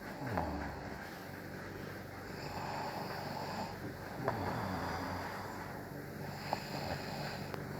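A person snoring in sleep: a rough snore roughly every four seconds, each dropping in pitch, with breathy hiss between.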